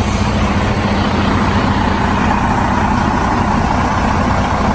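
Freightliner semi-truck's diesel engine idling steadily.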